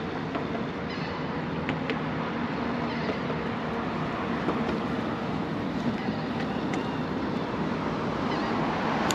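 Steady rumble of road traffic crossing the nearby concrete bridges, with a few light clicks over it.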